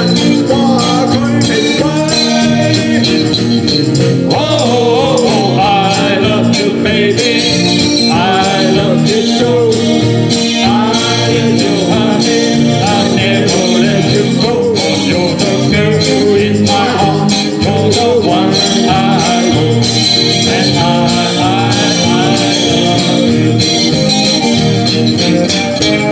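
Live band playing an upbeat pop medley loudly, with a steady beat and a melody line wavering over it.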